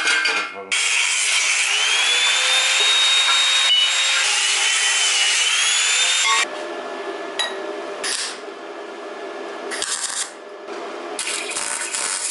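Angle grinder cutting through a steel scooter exhaust pipe, its high whine rising and falling as the disc bites for about six seconds. It then stops abruptly, giving way to the quieter, irregular crackle of electric welding.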